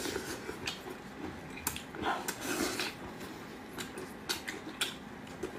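Close-up eating sounds: wet chewing and lip smacks as spicy sauce-covered meat is eaten, with irregular small clicks and rustles as gloved hands pull it apart.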